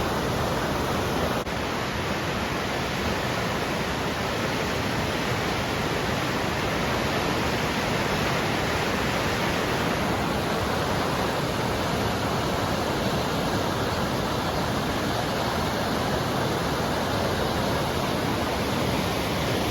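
Waterfall swollen with spring snowmelt runoff, a steady, dense rush of falling water with no let-up, briefly dipping about a second and a half in.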